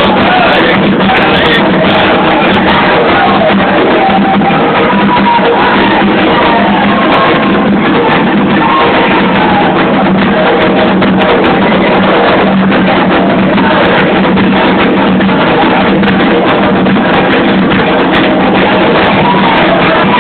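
Candomblé ceremonial music: continuous drumming with voices singing, recorded very loud and distorted.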